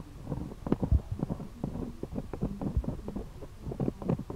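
Close handling noise: irregular soft knocks and rubs, several a second, from tweezer tips and fingers working at a circuit board on fabric, over a faint low hum.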